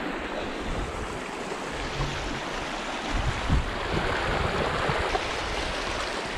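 Steady rush of a shallow creek running over stones, with low thumps coming through underneath in the second half.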